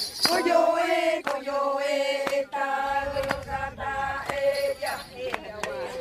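A group of women chanting together in unison, holding long notes, with sharp beats about once a second.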